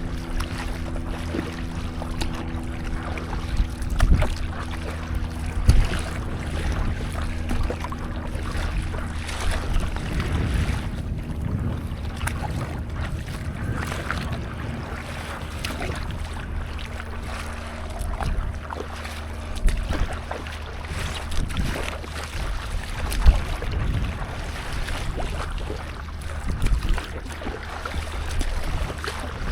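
Sea water and wind on the microphone while out stand-up paddleboarding, with occasional thumps. A steady low hum runs under it and fades out about ten seconds in.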